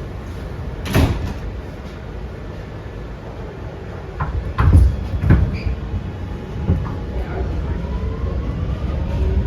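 Doors of a Kawasaki R211A subway car closing with a sharp knock about a second in, followed by a few heavy clunks, as the train gets ready to depart. Near the end, faint rising whines begin as the train starts to pull away over a steady rumble.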